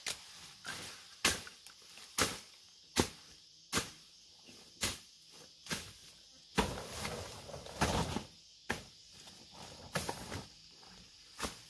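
Weeds being chopped with a long-handled hand tool: sharp strokes about once a second, with a longer stretch of rustling and dragging of cut vegetation about halfway through. A steady high-pitched insect buzz runs behind.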